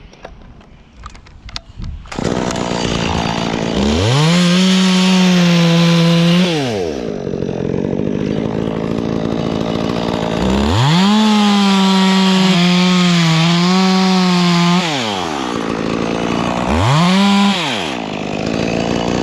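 Two-stroke chainsaw coming in suddenly about two seconds in, then idling between three bursts of full throttle; during the second, longer burst the pitch wavers as the chain works into the wood, cutting through the last head of a dead tree.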